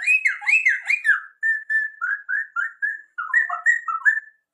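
Whistled imitation of a white-rumped shama's song: a quick series of clear sliding notes, about three to four a second, some falling and some rising.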